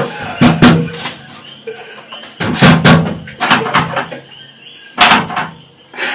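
A man sobbing loudly in three bouts, with short quieter pauses between them.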